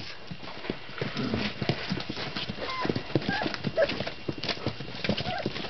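Many small clicks and scuffs of Weimaraner puppies' claws and paws moving over newspaper and the pen floor, with a few short, high whimpers from the hungry puppies.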